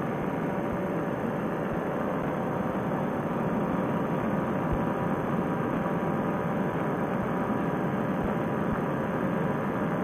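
Paramotor trike engine running steadily in flight with wind rush. It grows slightly louder about three and a half seconds in.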